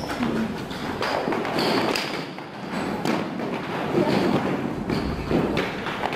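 Repeated thuds and knocks from a competitor's quick footsteps and a metal hose nozzle and ropes bumping on a wooden parquet floor while she ties a knot onto the nozzle.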